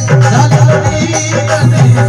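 Indian folk devotional music, without singing in this stretch: a steady hand-drum beat with rattle-like percussion under a sustained melody line.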